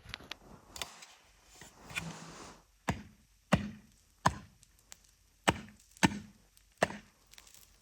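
A tool chopping hard at thin ice: six sharp whacks about a second apart, following a few lighter knocks. The ice is nearly giving way, one or two whacks short of breaking through.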